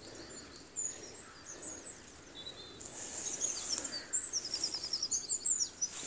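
Small songbirds singing and calling over faint outdoor background noise: high, thin chirps and whistles, with a fast run of repeated notes about four to five seconds in.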